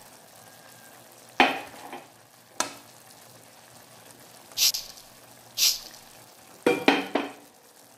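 Spatula scraping and stirring through a pan of chicken curry with potatoes and carrots: about five short scrapes over a faint simmering sizzle.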